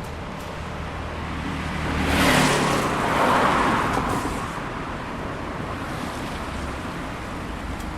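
Traffic on a fast city road: steady tyre and engine noise, with a vehicle passing close about two seconds in, swelling loud and fading away by about four seconds.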